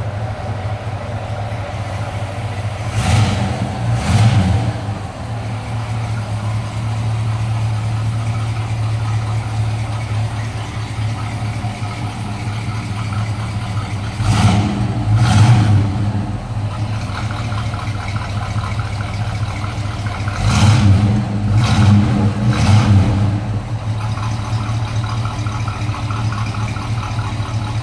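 1955 Chevrolet Big Window pickup's engine idling steadily, blipped to higher revs seven times in short bursts: twice about three seconds in, twice around the middle, and three times in quick succession later on.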